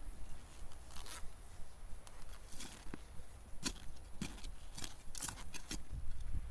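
Small spade stabbing and scraping into earth while digging a narrow hole, a run of short gritty strokes, about eight of them, coming closer together in the second half.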